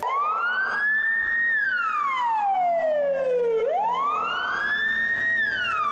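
Emergency vehicle siren in a slow wail. The pitch climbs for about a second and a half, falls slowly over about two seconds, then climbs again and starts to fall near the end.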